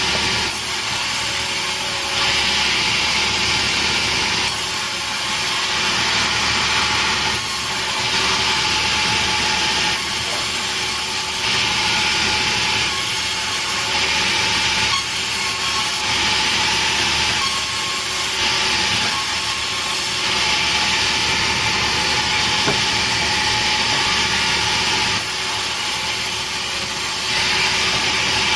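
Sawmill blade running steadily through a log of petai wood, with a high hiss that swells and eases every second or two over the machine's hum.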